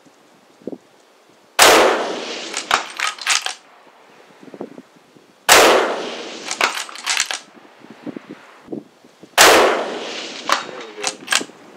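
Three rifle shots from 7mm PRC bolt-action rifles firing 175-grain Hornady ELD-X factory loads, about four seconds apart. Each shot is followed by echoes and, about a second later, the distant ring of the steel target being hit.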